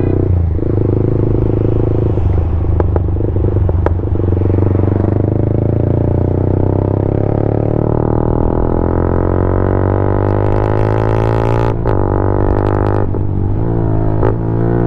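Yamaha MT-15's 155 cc single-cylinder engine running through an SC-Project full exhaust system under way, its exhaust note climbing in pitch as the bike accelerates, broken briefly by gear changes about twelve and thirteen seconds in.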